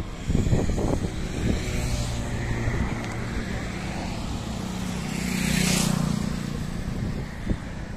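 Motorcycle passing along the road, its engine and tyre noise swelling to its loudest about five to six seconds in and then fading. Low rumbling thumps on the microphone in the first second and a half.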